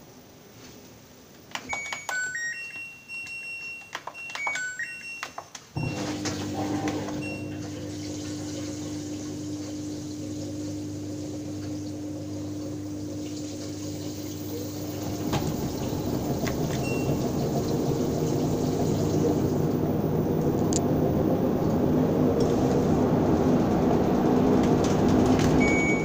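Front-loading washing machine starting a wash: a short run of electronic beeps from its control panel, then about six seconds in a steady hum and hiss as water starts running into the drum. From about fifteen seconds the rush of water grows steadily louder.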